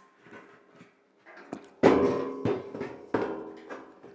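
Cabinet side panels and stabilizer knocking together while being handled and fitted. A few sharp knocks, the loudest about two seconds in, each leaving a short ringing.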